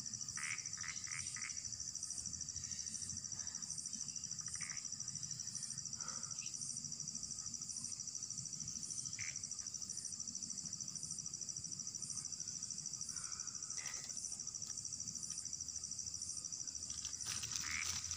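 Steady high-pitched chorus of night insects, a continuous fast trill, with a fainter higher pulse repeating about once a second and a few scattered short calls from other animals.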